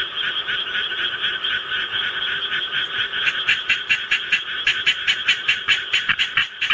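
Japanese tree frog calling in a rapid series of croaks, about five a second, growing louder from about three seconds in, over a dense chorus of other frogs.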